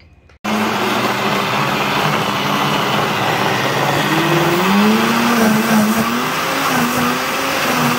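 Countertop blender switching on about half a second in and running loud and steady, pureeing avocado and coconut into a thick sauce. The motor's pitch wavers midway as the mixture churns.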